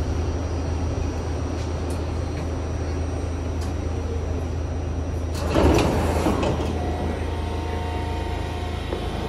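Steady low hum of a New York subway car at a station, with a loud rushing burst about five and a half seconds in as the car's doors slide open.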